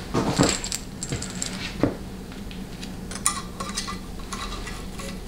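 Small steel bolts clinking and rattling as they are handled and set into a 700R4 transmission's valve body: a few sharp knocks in the first two seconds, then a run of light metallic jingling about three to four seconds in, over a steady low hum.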